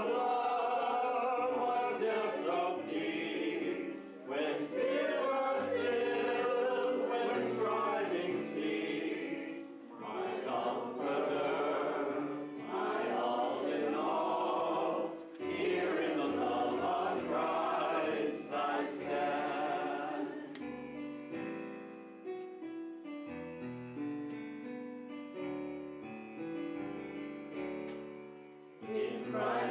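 Congregation singing a hymn together with instrumental accompaniment. The voices drop out about two-thirds of the way in for an instrumental interlude, and the singing comes back in near the end.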